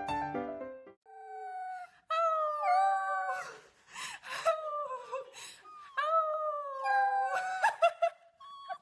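A dog howling: several long, wavering calls that slide down in pitch, with short broken yelps near the end.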